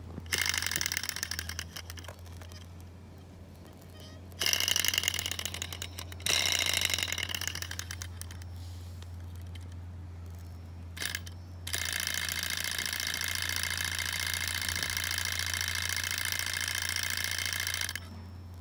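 Small model hot-air (Stirling) engine being flicked over by hand: its flywheel and linkage spin up with a fast metallic rattling whir that dies away within a second or two, three times over. About twelve seconds in it runs steadily with the same rattle for about six seconds, then cuts off suddenly.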